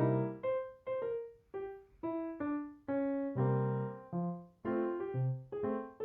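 Background music: a piano or electric piano playing a light tune of separate chords and notes over a bass line, about two notes a second.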